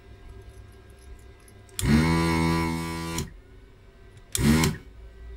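Vacuum desoldering tool's pump running in two bursts, one of about a second and a half and then a shorter one of about half a second, each rising in pitch as it starts, sucking molten solder from component pins on a circuit board.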